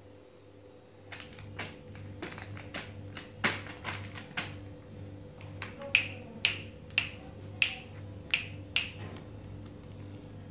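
A baby's hand slapping and patting plastic grocery packets lying in a steel basin: a series of sharp taps and crinkles, coming faster and louder, about two a second, in the second half.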